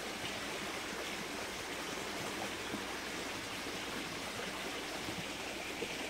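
Steady, even rush of running water from a small stream.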